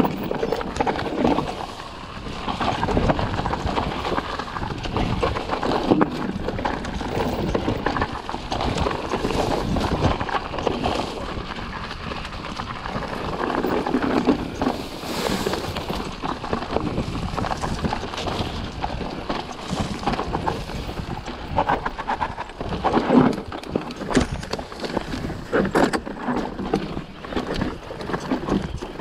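Mountain bike riding a rough downhill dirt singletrack: a continuous jumble of rattles and knocks from the bike over bumps, with tyre noise on the dirt and tall grass swishing against the handlebars, and a few harder knocks.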